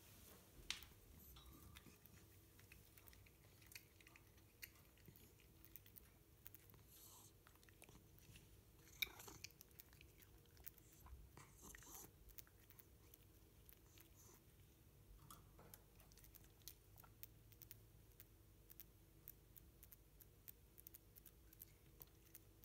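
Faint crunching and clicking of a cat nibbling a slice of bread through the wire bars of a birdcage, small bites scattered throughout, with a sharper click just under a second in and another about nine seconds in.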